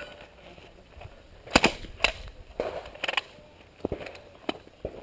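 Suppressed Uzi submachine gun firing about eight sharp, separate shots at irregular spacing, the loudest about one and a half seconds in.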